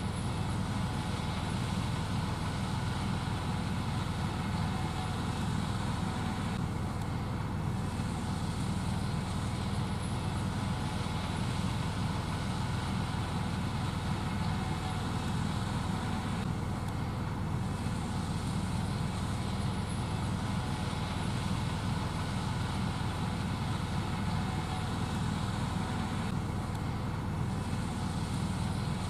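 Gleaner S78 combine running steadily while shelling corn: a constant deep engine and machinery drone with a many-toned hum above it.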